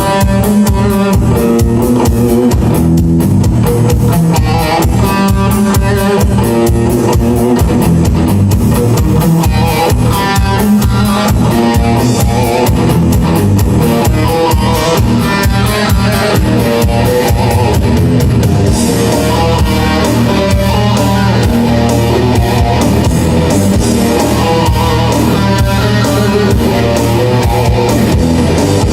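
Electric guitar shredding a fast instrumental rock piece, with drums keeping a steady beat, played live and loud.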